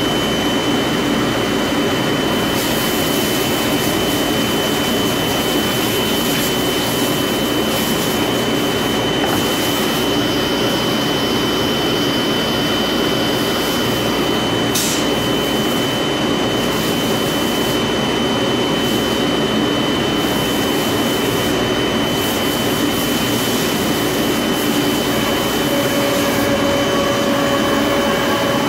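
Shop Sabre 4896 CNC router cutting a melamine-faced sheet: the loud, steady rush of the spindle and router bit with its dust extraction, under one steady high whine.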